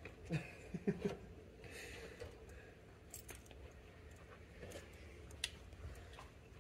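Faint, scattered metal clicks and clinks of hand tools being handled while a battery terminal is worked on, a couple of sharper ticks standing out about three and five and a half seconds in.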